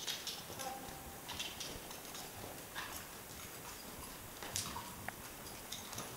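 Hoofbeats of a ridden horse walking on the soft dirt footing of an indoor arena: an irregular clip-clop of short, muted clicks.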